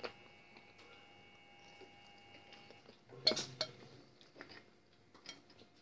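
Quiet eating of fried chicken: small clicks of a fork on a china plate and chewing, with a louder burst of mouth and clinking noise about three seconds in.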